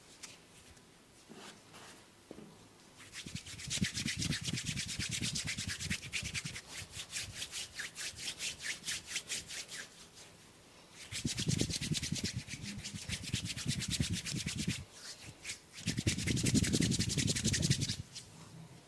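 Hair and scalp being rubbed and scratched briskly in quick repeated strokes, in three bouts: a long one from about three seconds in, then two shorter ones.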